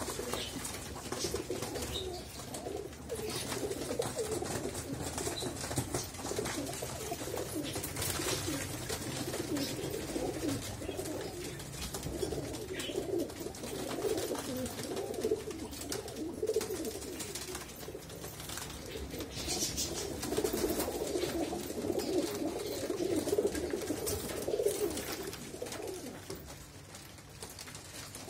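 A loft full of domestic teddy pigeons cooing, many birds at once, so the low warbling coos overlap into a continuous chorus.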